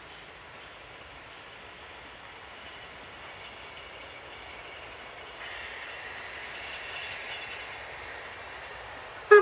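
Freight wagons rolling past behind steam locomotive 50 307, a steady noise of wheels on rails that slowly grows louder, with a thin steady high whine over it. Near the end comes a short, loud whistle blast, the loudest sound.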